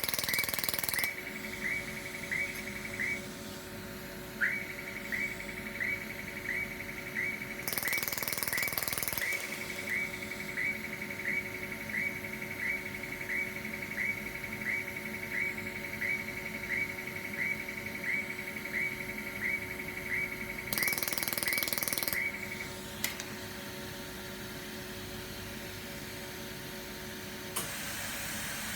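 Pulsed YAG laser welder firing a train of short, sharp pulses, about one and a half a second, with a brief pause after about 3 seconds and a stop near 23 seconds. A steady machine hum runs underneath, and short bursts of hiss come three times.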